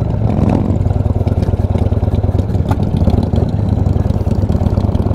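Motorcycle engine running steadily at low speed with a fast, even pulse and no revving.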